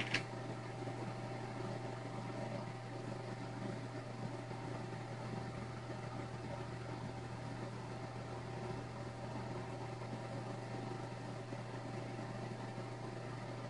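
Steady mechanical hum, like a computer fan, with a faint constant whine above it. One short click comes just after the start.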